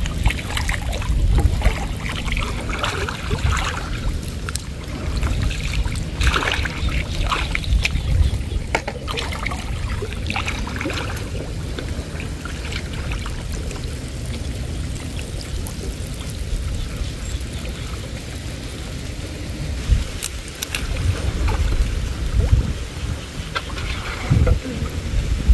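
Water sloshing and trickling around a person wading chest-deep and groping in a hole in a canal bank, over a steady low rumble. Short splashes come often in the first half, it goes calmer in the middle, and there is a sharp knock about 20 seconds in.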